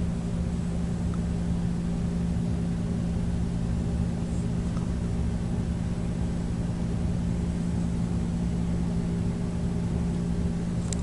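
A steady low hum, like a transformer, fan or motor running, unchanging throughout with no distinct clicks or other events.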